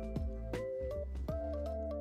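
Background music: a gentle melody over a steady bass with light percussion.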